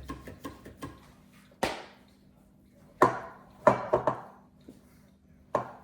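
Kitchen utensils and dishes being handled: light ticks, then a handful of sharp, separate knocks and clatters.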